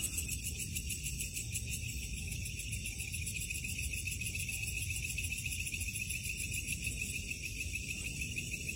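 Crickets and other night insects trilling steadily in several high pitches, over a low rumble.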